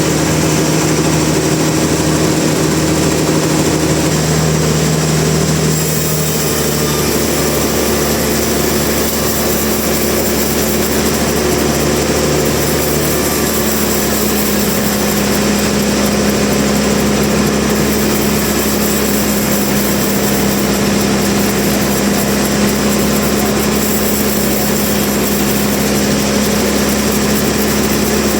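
Sawmill machinery running steadily, a loud motor-driven drone. Its main hum steps up in pitch about six seconds in and then holds.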